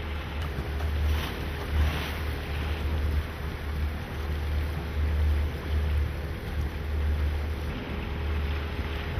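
Motor boat cruising under steady engine power, its engine a low, even drone beneath water noise. Wind buffets the microphone in irregular low gusts.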